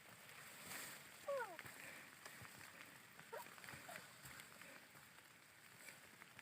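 Near silence: a faint steady hiss of outdoor ambience, with a short falling sound about a second in and a brief faint tone a couple of seconds later.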